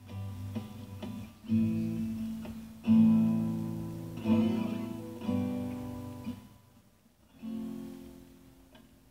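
Solo acoustic guitar playing an instrumental passage: chords strummed every second or two and left to ring out, the strongest about three seconds in, with the playing thinning out near the end.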